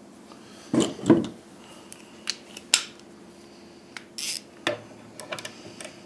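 Scattered sharp metallic clinks and taps from a nut, washer and small wrench being handled as a new nut is started by hand on an electric cooling-fan motor shaft.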